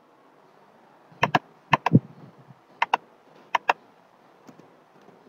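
Clicking at a computer: about eight sharp clicks, most in close pairs a tenth of a second apart, then a few fainter ticks near the end.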